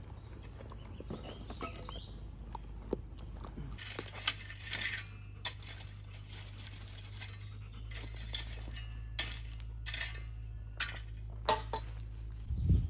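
A scattered series of about ten sharp, light metallic clinks and jingles, beginning about four seconds in, over a steady low rumble.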